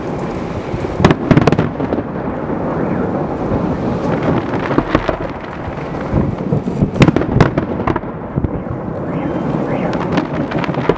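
Fireworks display: aerial shells bursting with sharp bangs, in clusters about a second in and about seven seconds in, over a continuous rumble of further bursts.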